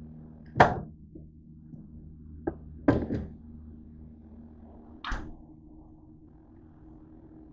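Small under-counter fridge door thudding shut, the loudest sound, followed by a few lighter knocks and a double clatter of kitchen things being handled.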